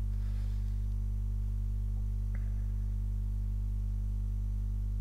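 Steady electrical mains hum with its overtones, picked up by the recording, with one faint click a little past two seconds in.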